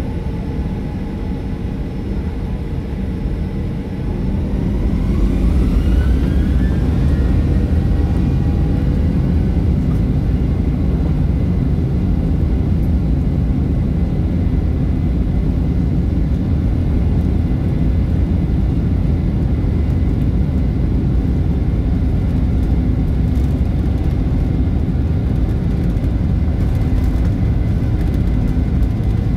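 Jet airliner's turbofan engines at takeoff thrust, heard from inside the cabin during liftoff and initial climb: a steady, loud low drone. It gets louder about five seconds in, with a faint rising whine over it.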